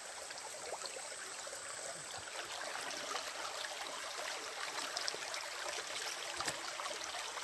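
Flowing stream water, a steady rushing and trickling.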